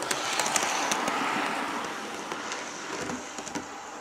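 Bachmann Class 37 OO gauge model diesel locomotive running past on model railway track: motor whirr and wheels on the rails, with scattered clicks. It is loudest as it passes close, about a second in, then slowly fades.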